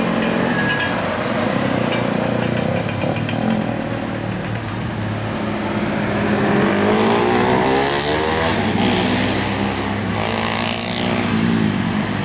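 Road vehicle engines running past, one rising in pitch as it accelerates about seven seconds in and again near the end.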